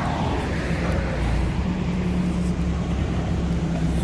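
Diesel engine of a Mack McNeilus front-loader garbage truck running steadily with a low drone; a hiss dies away just after the start.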